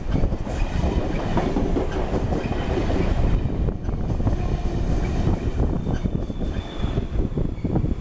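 Amtrak Amfleet passenger coaches rolling past on steel wheels: a steady, loud rail rumble with clattering over the rail joints and switches.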